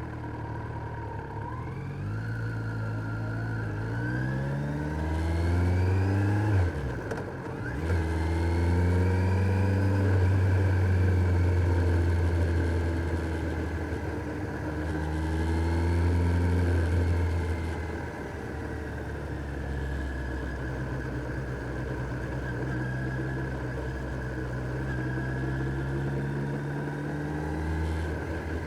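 Kawasaki Z900 motorcycle's inline-four engine under way: revs climb, dip sharply at a gear change about a quarter of the way in, climb again and hold high, then ease off past the middle to a steady, lower cruising note.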